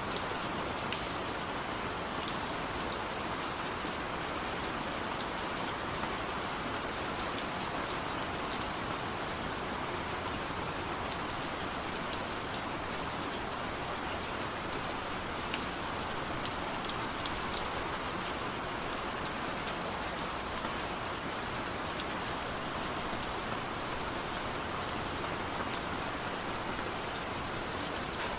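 Steady rain: an even hiss with scattered sharp drop ticks, and no thunder.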